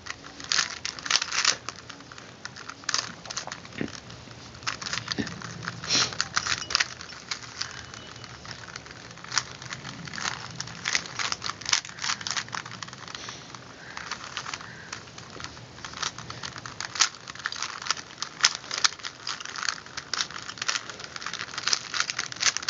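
A plastic 3x3 Rubik's Cube being turned by hand: irregular runs of quick clicks and clacks as its layers are rotated, with short pauses between runs.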